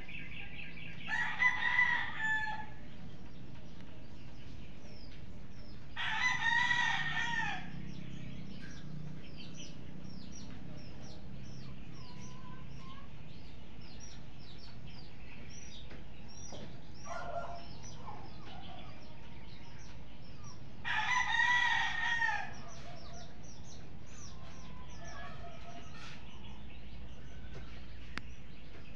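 A rooster crowing three times, each crow about a second and a half long, with a weaker call in between and faint, rapid chirping of small birds.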